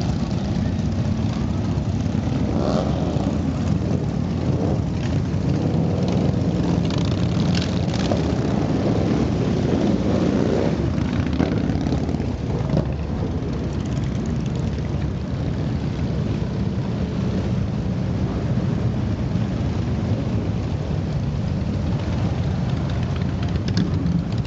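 A continuous line of motorcycles riding past, their engines making a loud, unbroken din. Individual bikes rise and fall in pitch as they go by, most clearly in the first half.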